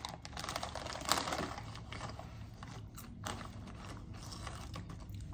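Plastic snack bags crinkling and rustling as they are handled, in irregular crackles and clicks.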